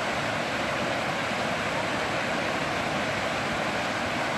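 Creek water rushing steadily over rocks and small cascades.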